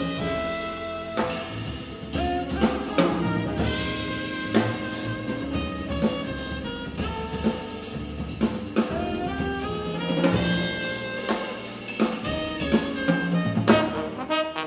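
Jazz quintet playing live: tenor saxophone and trombone over piano, double bass and drum kit, with the drums keeping a steady beat.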